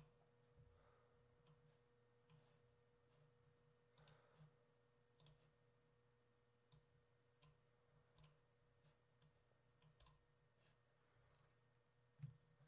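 Near silence with a scattering of faint computer mouse clicks at irregular intervals, over a faint steady electrical hum.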